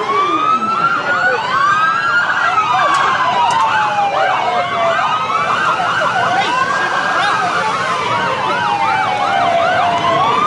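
Several emergency-vehicle sirens sounding together: one on a slow wail that climbs and falls about every five seconds, overlapped by another on a fast yelp of several rapid rises and falls a second.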